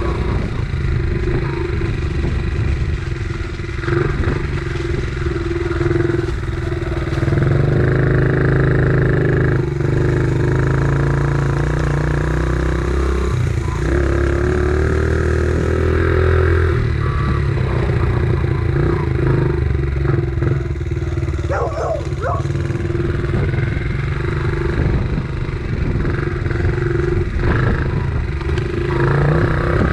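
Dirt bike engine running under way, revving up and easing off as it is ridden over rough ground, with a cluster of short rattles about twenty-two seconds in.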